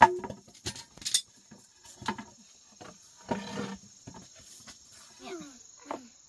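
A steady high drone of insects, with several sharp clicks or snaps in the first two seconds and a short rustle about three seconds in. Near the end comes a brief voice sound that bends in pitch.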